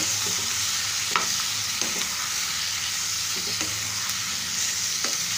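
Sliced tomatoes, onions, garlic and cashews sizzling in a nonstick kadai while a wooden spatula stirs them, with a few short knocks and scrapes of the spatula against the pan, the sharpest about a second in.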